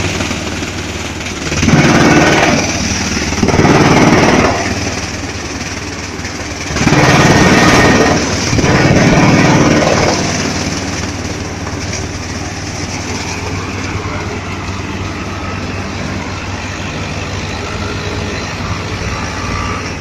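Drum chipper running while it crushes plastic waste, its noise surging loudly four times in the first ten seconds as loads go through the drum, then running steadily.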